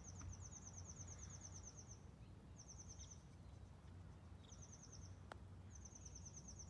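A putter face strikes a golf ball once, a single sharp click about five seconds in. Around it, faint high rapid bird trills come in several short runs, over a low steady background rumble.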